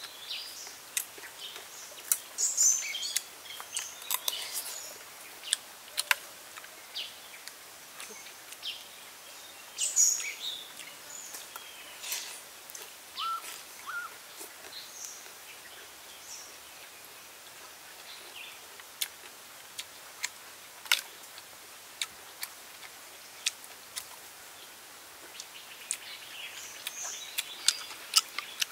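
Birds chirping over a quiet outdoor background, with scattered sharp clicks and taps of a metal spoon against a coconut-shell bowl and a metal tray.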